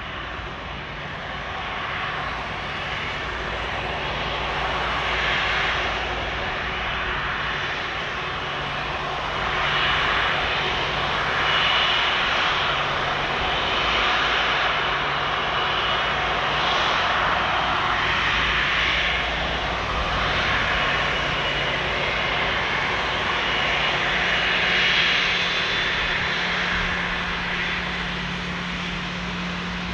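Airbus A330-300's twin jet engines running at taxi power as the airliner taxis close by, a steady rushing hiss and whine over a low hum. It grows louder over the first several seconds, then swells and eases in waves as the aircraft turns and passes.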